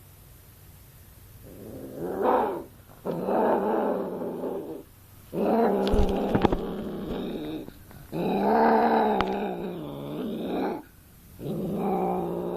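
Persian cat yowling during mating: a run of long, drawn-out wails with wavering pitch, each about two seconds long with short breaks between, starting about a second and a half in.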